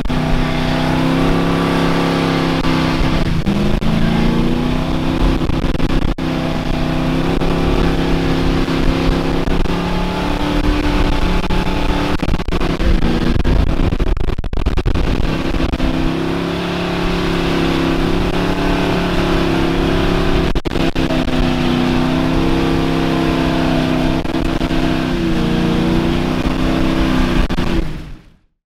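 Mud-bog truck engine running hard at high revs under load, its pitch wavering and dipping repeatedly as the throttle is worked. The sound cuts off abruptly near the end.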